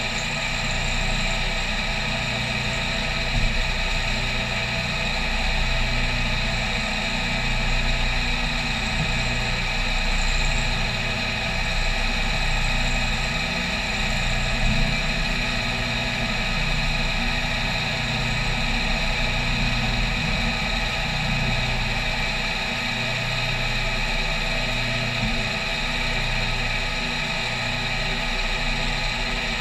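CNC milling machine cutting an aluminium plate with an end mill on a 2D adaptive toolpath: a steady high spindle-and-cutting whine over a low hum that swells and drops about once a second as the tool sweeps around its looping path.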